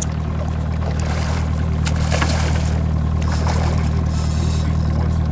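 Boat engine idling steadily with a low, even hum, with brief splashing of water about two and three and a half seconds in.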